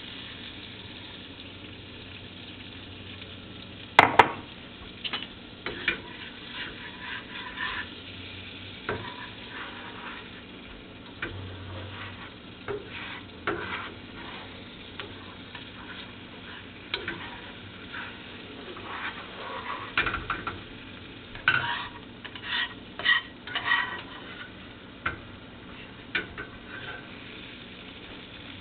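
Spoon stirring and scraping in a cooking pot, with scattered clinks and knocks against the pot and a loud sharp knock about four seconds in, over a steady hiss of the pot cooking.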